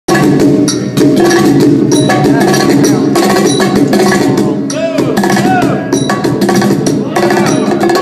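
Loud percussion-led music: rapid drum and percussion strokes over sustained pitched tones, with a few sliding pitch bends about five seconds in.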